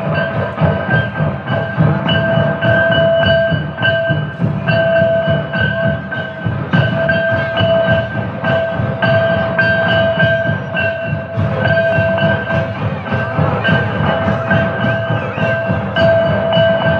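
Santali folk dance music: fast, dense drumming under a high melodic line of held notes that repeat in short phrases about a second long.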